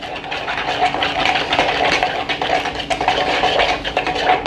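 A utensil whisking a liquid marinade of oil and lime juice in a bowl: continuous rapid scraping and light clinking against the bowl.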